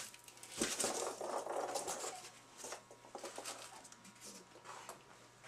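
Foam packing peanuts and a cardboard shipping box being handled: irregular rustling with light knocks, busiest in the first couple of seconds and fainter after.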